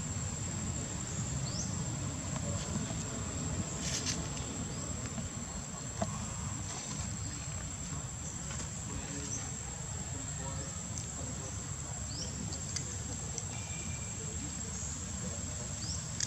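Steady high-pitched insect drone with a low background rumble, broken now and then by a few short rising chirps.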